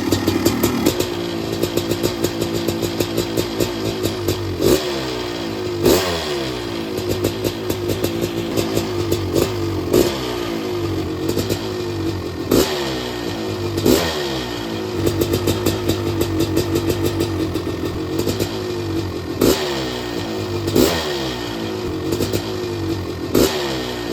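Honda CR500 single-cylinder two-stroke dirt bike engine idling after being kickstarted, blipped about eight times: each rev spikes sharply and falls back to idle. It is the engine's first run in over two years, just after its rebuild.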